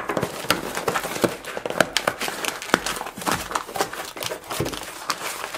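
Taped cardboard box being pulled open by hand, the flaps scraping and the brown packing paper inside crinkling and rustling, with many short sharp crackles.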